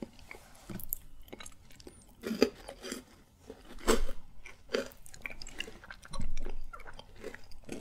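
Candy being chewed and crunched close to the microphone: irregular crunches and small wet clicks, the loudest about four and six seconds in.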